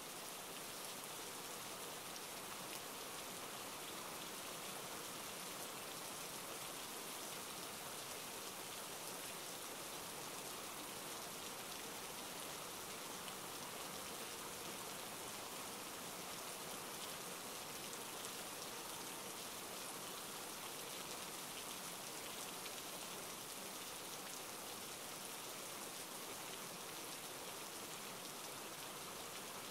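Steady rain falling, a faint, even hiss that holds unchanged throughout.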